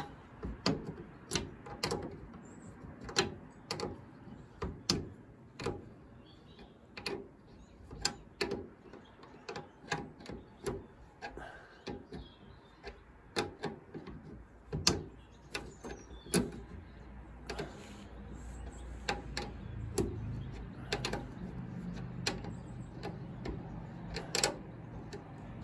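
Ratcheting spanner clicking in short strokes as a nut is worked tight on the Land Rover's windscreen wiper spindle: sharp metal clicks, one or two a second, at an uneven pace.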